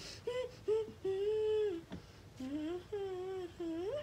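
A girl humming a wordless tune: two short notes, a long held note, then a phrase that climbs in pitch near the end.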